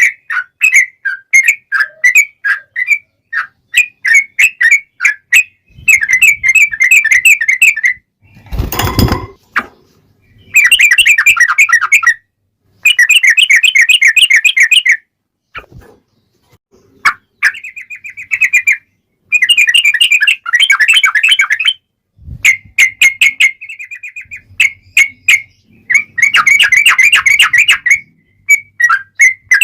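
Yellow-vented bulbul singing, fast chattering runs of short bubbly notes in repeated phrases of about two seconds, with short breaks between them. About nine seconds in there is a brief, loud rushing noise.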